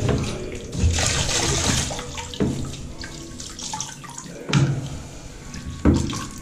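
Water sloshing and splashing in a tiler's wash bucket as a grout sponge float is rinsed and wrung through its rollers, with several knocks as the float and bucket parts bump together.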